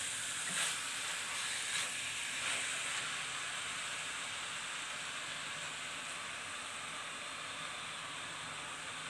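Chicken sizzling in a hot electric wok, a steady hiss. Over the first three seconds a few scrapes of the spatula against the pan come through it.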